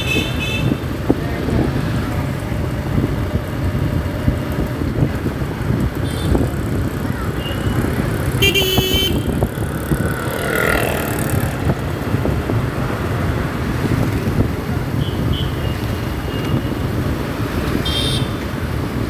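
Steady wind and road noise from a moving motorcycle in city traffic, with short vehicle horn toots: one at the start, a louder one about halfway through, and another near the end.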